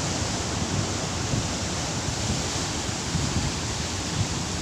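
Steady rush of sea waves surging onto the shore in strong wind, with wind buffeting the microphone as a low, uneven rumble.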